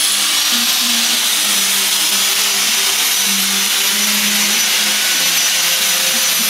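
Handheld electric power tool running steadily on pallet wood, a continuous high-pitched whine and hiss as it carves grooves.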